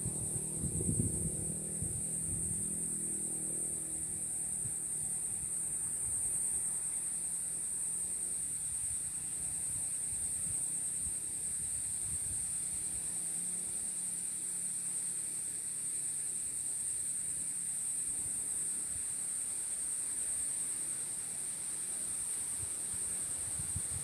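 A steady, high-pitched insect drone of crickets or cicadas, unbroken and even throughout. Wind buffets the microphone with a low rumble for the first few seconds.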